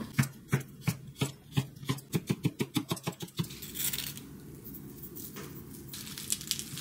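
A kitchen knife chopping on a cutting board in a fast run of cuts that speeds up and stops after about three and a half seconds, followed by softer rubbing sounds of hands working salt into sliced cucumber in a plastic colander.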